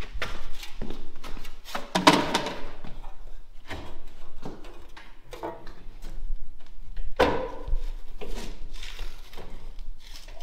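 Broom bristles sweeping debris across a concrete floor into a dustpan, with irregular scraping and the dustpan knocking and clattering. There are louder clatters about two seconds in and again about seven seconds in.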